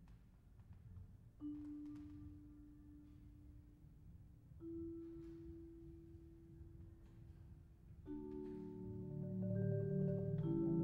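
Marimba and vibraphone duo playing a slow opening: one long-ringing note about 1.5 s in and another near 5 s, then from about 8 s several notes and low rolled chords join and the music grows louder.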